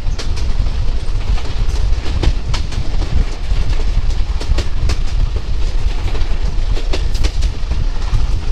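A local train running along the track: a steady low rumble with irregular clicks and clacks from the wheels over the rails.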